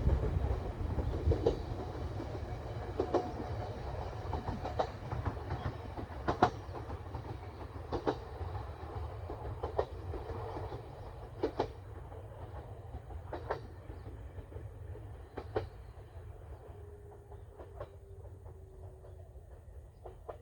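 Bessho Line 1000 series two-car electric train running away over jointed track. Its rumble slowly fades, and a sharp wheel click from the rail joints comes about every second and a half to two seconds, each one fainter than the last.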